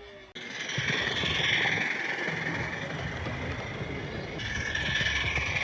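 Small 32mm gauge live steam model locomotive hissing steam, a steady hiss that starts suddenly just after the beginning.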